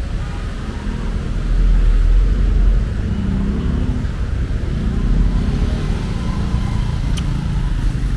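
Road traffic: vehicle engines running past with a deep rumble that swells about two seconds in and again about five seconds in. A short sharp click comes near the end.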